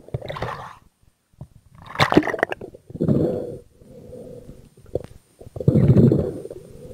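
Muffled underwater rushing and gurgling of water over the camera as a freediving spearfisher swims down, in repeated uneven surges, with bubbles at the start.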